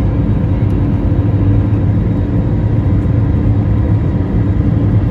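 Airbus A320-200 cabin noise while climbing out: a steady low drone of the engines and airflow heard from a window seat beside the engine, with a constant low hum and a fainter steady tone above it.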